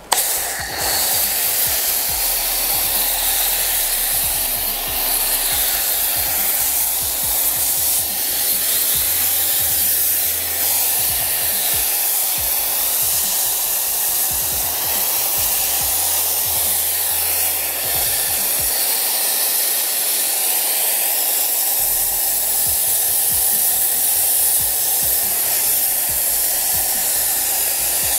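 Snow foam lance on a Kranzle Therm CA11/130 hot pressure washer spraying hot, watery snow foam onto a car in a loud, steady hiss that starts suddenly.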